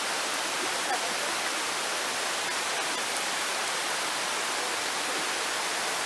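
Steady hiss of rain and rushing water in a wet glen.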